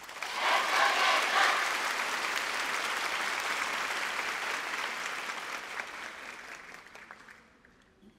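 Audience applauding. It starts at full strength and dies away over about seven seconds.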